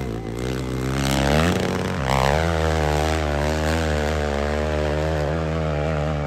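Dirt bike engine under hard throttle as it climbs a steep dirt hill. The pitch climbs, then drops with a gear change about two seconds in, and the engine then pulls steadily at high revs.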